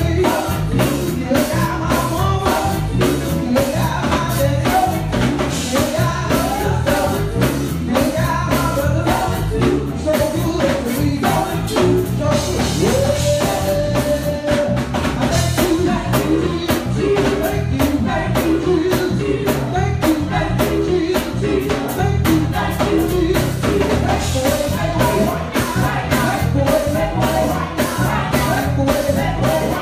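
Live gospel music: a young male lead singer sings through a handheld microphone and the church sound system over a band with drum kit and bass.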